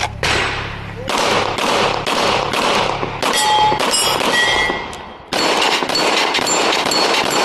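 Rifle shots fired in a steady string of about two a second. High ringing pings among them about halfway through are steel targets being hit. After a brief lull a little before five seconds, the firing resumes faster.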